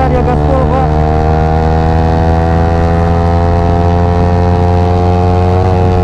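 Yamaha R15 V3's single-cylinder engine running at steady high revs under way, its pitch creeping slowly up as the bike accelerates, then easing slightly near the end.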